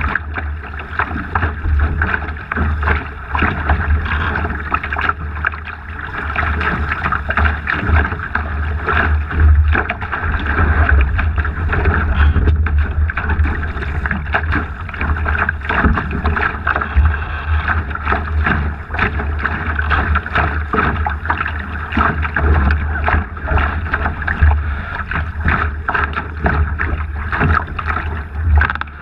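Water rushing and splashing along a Laser dinghy's hull as it sails fast through choppy water, with irregular slaps of spray. Wind buffets the deck-level microphone in a steady low rumble under it all.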